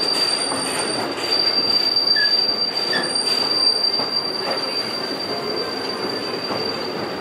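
Western River Railroad train car rolling along the track: a steady rumble of wheels on rail with a constant high-pitched whine over it and a few faint clicks.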